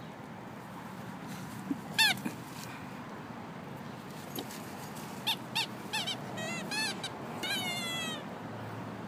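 A dog's squeaky toy squeaking as the small dog bites and squeezes it: one loud squeak about two seconds in, then a quick run of about six short squeaks and a longer, wavering squeak near the end.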